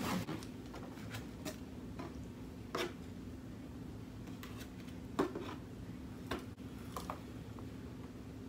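Sparse soft clicks and taps from wooden chopsticks and a foam takeout box as noodles are picked up and eaten, the loudest about five seconds in.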